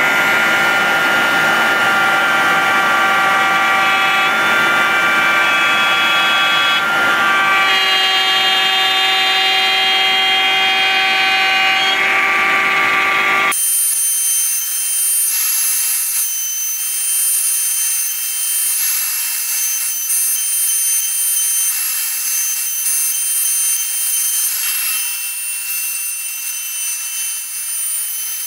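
CNC router spindle running and cutting maple with a 1/4-inch bit, a steady machine whine with several held tones that step in pitch now and then. About halfway through the sound changes abruptly to a thinner, high-pitched whine.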